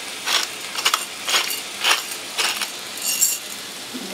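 Black pepper being dispensed from a small handheld glass pepper grinder over a cooking pot: a run of short gritty clicks, roughly two a second.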